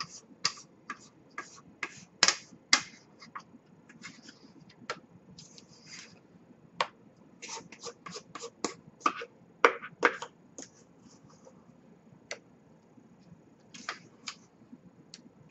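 A spatula scraping thick cake batter out of a stainless steel mixing bowl into a baking pan: irregular short scrapes and taps against the metal bowl, a few of them louder.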